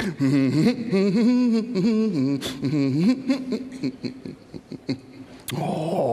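A man's wordless vocal noises. For about three seconds the pitch slides up and down, then it goes quieter, and a steady held note comes near the end.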